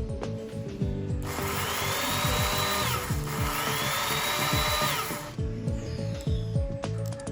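Makita 9031 belt file sander run in two bursts, its motor whining up in pitch and levelling off each time, starting about a second in and stopping about five seconds in. Background music with a steady beat plays throughout.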